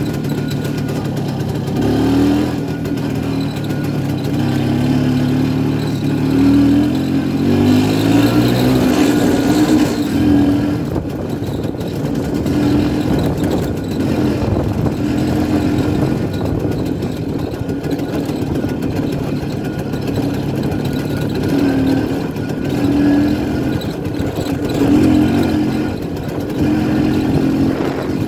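1967 Pannonia P10 motorcycle's 250 cc single-cylinder two-stroke engine running under way. The revs rise and fall repeatedly through the first ten seconds or so, then hold steadier with a few short surges.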